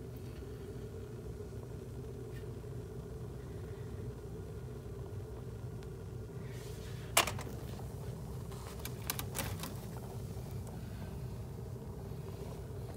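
Sneakers and logs burning, giving a sharp pop about seven seconds in and a few smaller crackles around nine seconds, over a steady low hum.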